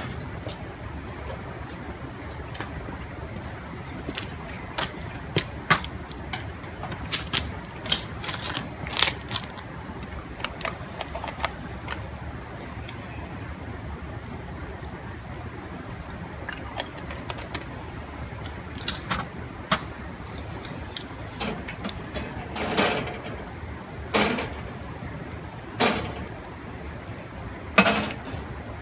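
Wood fire crackling in a barbecue grill, with scattered sharp pops over a steady low hiss. A few louder knocks come in the last several seconds.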